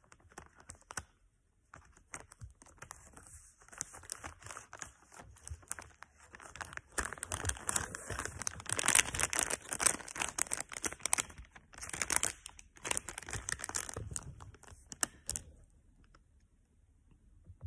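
Plastic candy packaging being handled: crinkling and rustling with tearing sounds, coming in a dense crackle that is busiest in the middle and stops a couple of seconds before the end.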